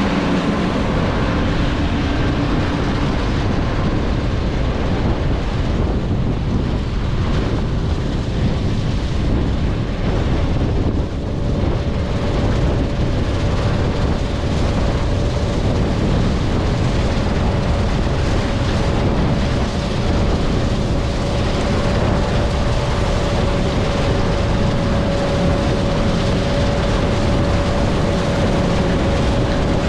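John Deere 9600 combine running steadily while harvesting soybeans: a dense, constant machine din, joined about eleven seconds in by a steady whine that holds on.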